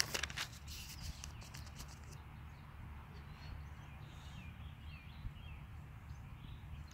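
Thin Bible pages rustling as they are leafed through in the first two seconds, then faint birds chirping now and then over a steady low rumble.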